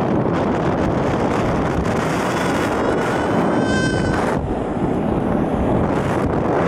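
Steady rushing noise of a snow tube sliding fast down a groomed snow run, with wind buffeting the microphone. A thin, slightly rising whine sounds for about two seconds in the middle and cuts off suddenly.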